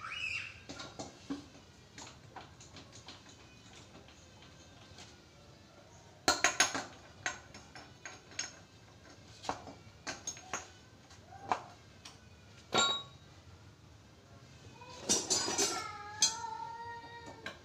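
Metal hand tools and engine parts clinking and knocking at irregular intervals as a motorcycle engine is being taken apart, with the loudest clatter about six seconds in and another ringing group near the end.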